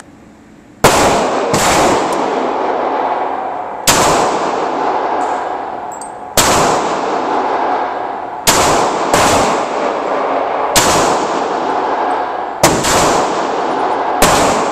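Handgun shots fired one at a time, about nine of them at uneven intervals of one to two and a half seconds, starting a moment in. Each shot rings on with a long echo off the concrete walls of the indoor range.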